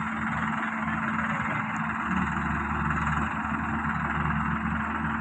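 Heavy diesel machinery running steadily, with a deeper low rumble joining about two seconds in.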